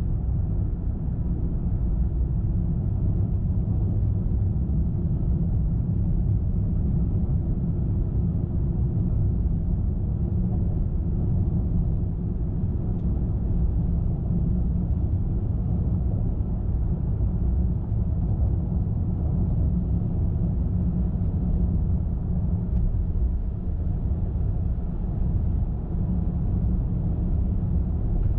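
Car driving at a steady speed: a constant low rumble of tyres on the road and the running engine.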